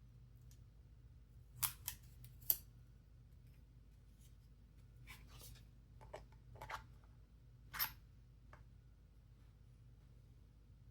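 Faint, scattered small clicks and scrapes, about eight of them, with the sharpest one about eight seconds in: a plastic Ellipal X Card being handled and slid into its card reader.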